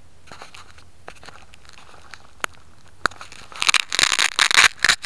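Fingers handling the quadcopter's 808 keychain camera right at its microphone as it is picked up off dry grass: scattered clicks, then dense crackling and rubbing for about a second and a half near the end.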